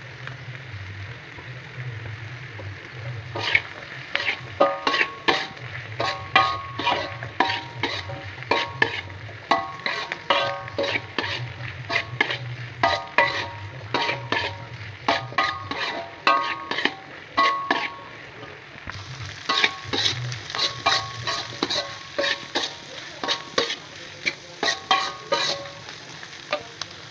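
A metal spatula scraping and knocking against a wok while stir-frying mustard greens and tempeh, over a steady sizzle. The strokes start about three and a half seconds in and come in quick runs of several a second, the wok ringing briefly with each knock.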